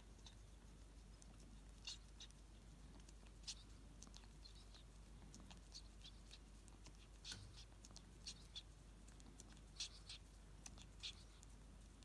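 A ferret licking and eating cream and Christmas pudding from a ceramic bowl: faint, irregular wet licking and smacking clicks, about one a second.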